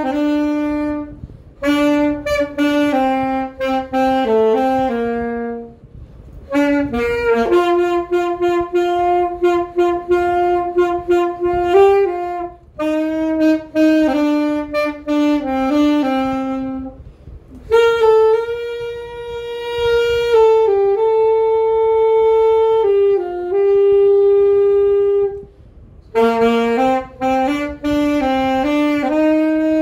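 Solo alto saxophone playing a slow melody in phrases, with short breathing gaps between them and long held notes in the middle stretch.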